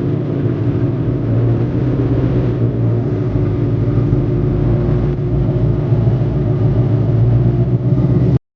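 Ford Mustang GT's V8 engine running steadily, cutting off abruptly near the end.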